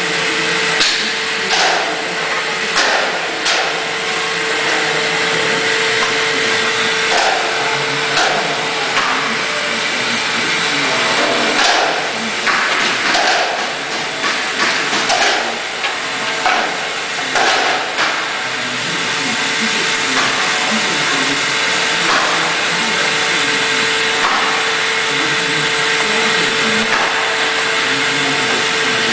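Vacuum forming machine running with a steady hiss and a steady hum, while irregular knocks and clanks come through over the first two-thirds. The hum stops about two-thirds of the way in, leaving the even machine noise.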